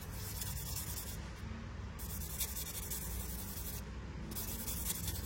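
Abrasive pad rubbed over a Zippo lighter's metal case to refinish its surface, a soft hiss in three long strokes.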